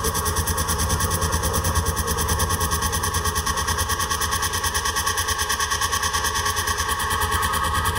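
Minimal electronic music: a low, buzzing synthesizer drone pulsing in a fast, even rhythm, with steady higher tones above it. A high hiss layer drops out near the end.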